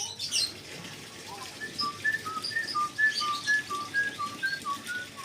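A short high chirp, then a two-note whistle, a higher note followed by a lower one, repeated evenly about twice a second.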